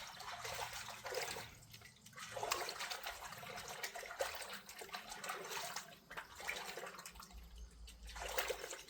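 River water trickling and splashing at the bank, coming in several uneven swells.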